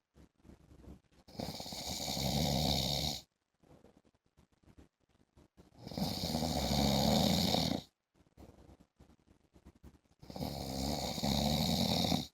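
A man snoring in a regular rhythm: three long snores, each about two seconds, coming roughly every four and a half seconds with quiet breaths between.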